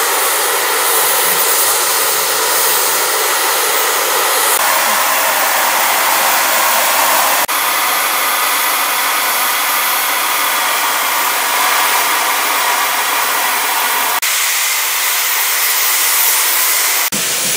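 Standing steam locomotive, LSWR Beattie 2-4-0 well tank 30587, venting steam with a loud, steady hiss. The hiss changes abruptly in tone several times.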